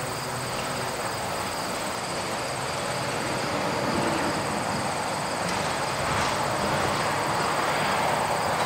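Steady rushing drone of a passing vehicle, swelling a little partway through, with a thin steady high-pitched whine above it.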